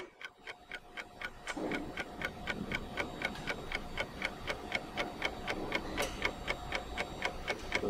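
Clock-ticking sound effect: rapid, even ticks, several a second, keeping steady time with a digital stopwatch counting up.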